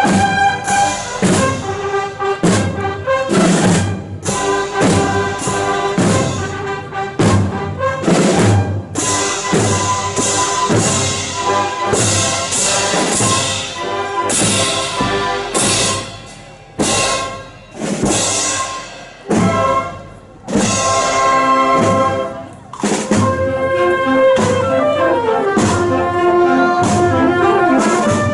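Brass band music with drums: horns playing a tune over regular drum strikes.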